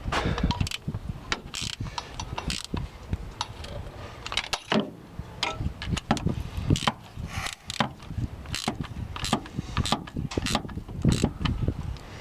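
Ratchet wrench clicking in short, irregular runs, with tools knocking against metal, as parts are bolted back onto a diesel engine.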